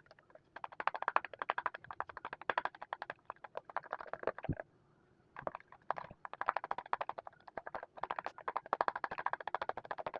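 Spoon stirring a thick shampoo-and-salt slime mixture in a bowl, sped up, so the strokes run together as rapid clicking and squelching, with a brief pause about halfway through.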